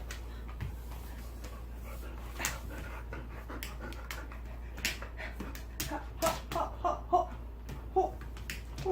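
Jindo dog panting, with scattered sharp clicks, then a quick run of short high whines from about six seconds in, excited greeting whimpers.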